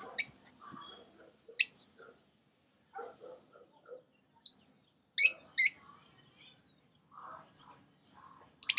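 Peach-faced lovebirds chirping: sharp, shrill single calls spaced a second or more apart, with soft chatter between them and a quick run of chirps near the end.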